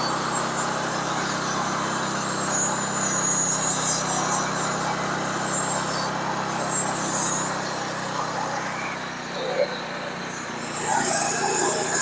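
Gas engine of a Woodland Mills portable band sawmill running steadily as the band blade cuts along a squared log. The sound eases a little about eight seconds in, with one sharp knock shortly after.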